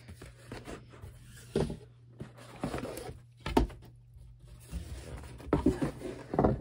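Thick cardboard board-game components and box being handled and lifted out: irregular light knocks and scrapes, with a sharper knock about three and a half seconds in and a cluster of knocks near the end.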